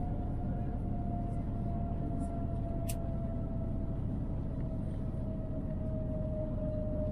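Airbus A350 cabin noise during the landing rollout, with the spoilers up: a steady low rumble and a thin whine that slowly drops in pitch as the aircraft decelerates. A single sharp click comes about three seconds in.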